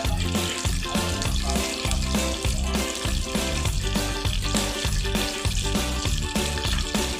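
Oil sizzling in a hot metal wok, a steady hiss, with background music playing over it.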